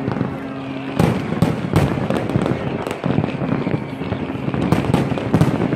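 Fireworks display: aerial shells bursting in a rapid, irregular series of loud bangs over continuous crackling.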